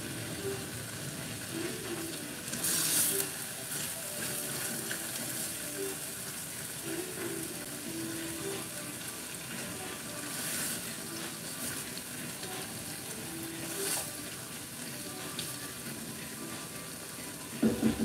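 Pot of tomatoes in water simmering on the stove with a steady sizzling hiss. Three brief louder noises come about three, ten and fourteen seconds in as the pot is stirred.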